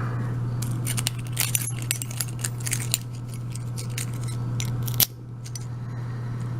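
Small metallic clicks and clinks of a brass euro cylinder lock and metal tools being handled. There is a quick run of light clicks in the first few seconds and one sharper click about five seconds in.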